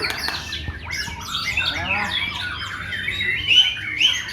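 Several murai songbirds singing over one another: dense, varied whistled phrases with quick rising and falling notes, one after another without a break.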